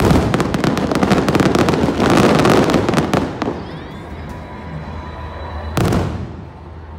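Aerial fireworks: a dense run of crackling pops for about the first three seconds, then a quieter lull and a single loud bang of a shell bursting near the end.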